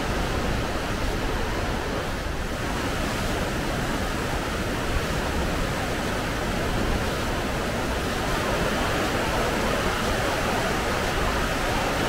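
Steady rushing of the Rhine Falls and the fast white-water rapids just above it, an even wash of water noise with no breaks.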